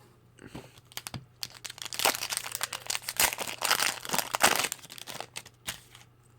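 Foil wrapper of a Pokémon Evolutions booster pack crinkling as it is handled and torn open, a dense crackling that is loudest in the middle.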